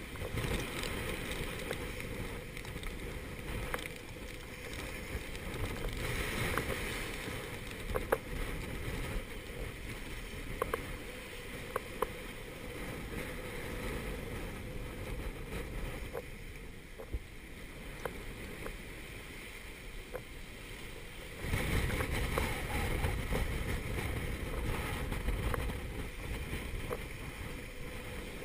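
Force 7 gale wind and breaking seas rushing past a small sailboat's hull, with wind buffeting the microphone. A few sharp knocks come between about 8 and 12 seconds in, and the rush of water grows louder about three-quarters of the way through.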